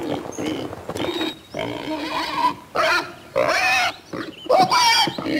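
Voiced pig sounds for a cartoon pig: a string of about six short pitched calls with brief gaps between them.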